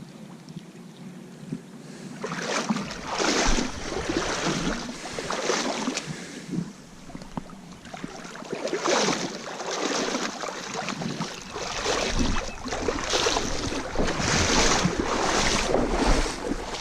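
Wind buffeting the microphone in repeated gusts, a low rumble with noisy swells every second or two.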